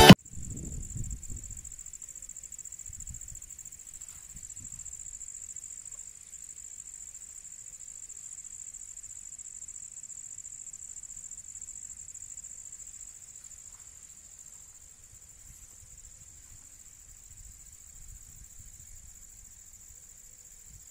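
Crickets trilling in one unbroken, high-pitched chorus, with a faint low rumble underneath.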